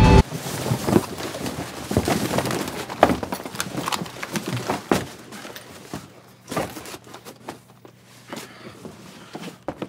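Cardboard boxes crashing down and tearing apart: a dense run of rustles, crackles and knocks for about five seconds. It then thins to scattered soft knocks and rustles over a faint steady hum.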